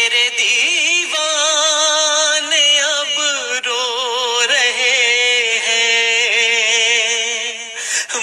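Naat singing: a voice drawing out long, wavering melismatic notes with no clear words, with short breaks about one and three and a half seconds in.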